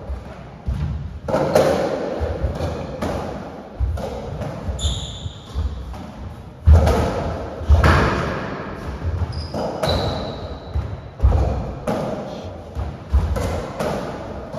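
Racketball rally on a squash court: the ball is struck by the rackets and thuds off the walls and floor at an uneven pace, each hit echoing in the court. Short high shoe squeaks come about a third of the way in and again at about two-thirds.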